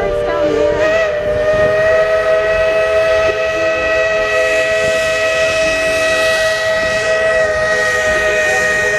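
Steam locomotive whistle blowing one long, steady blast of several notes at once, starting about a second in and held throughout, over the running noise of the train.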